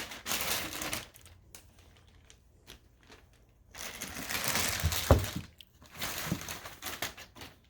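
Packaging crinkling and rustling as the wheels are unpacked from their box, in several bursts with a quieter lull in the middle, and a dull thump about five seconds in.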